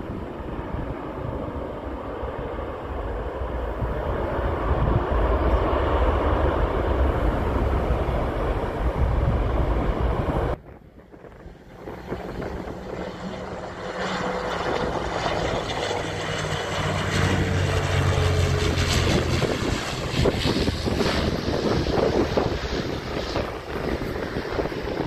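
Boeing 737 MAX 8 jet engines rumbling as the airliner slows on the runway after touchdown, with wind on the microphone. About ten seconds in it cuts off abruptly and an Embraer EMB-120 Brasilia's twin turboprops take over, a low propeller drone with a slowly falling whine as it comes in to land.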